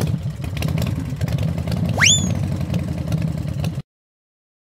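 Sound effect of an engine idling, a steady low pulsing, with a quick rising whistle about two seconds in; it cuts off suddenly near the end.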